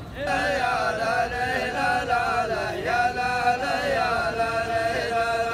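Group of men chanting a rajaz verse together in unison, long chanted lines with sliding pitch that break off near the end.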